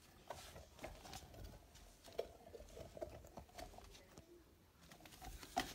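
Quiet handling noise: faint scattered taps and rustles as a hand puppet and a toy sword are moved about over a wooden floor.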